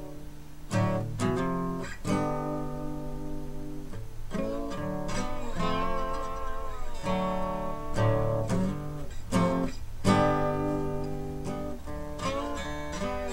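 Acoustic guitar music: chords plucked and strummed, each ringing on before the next.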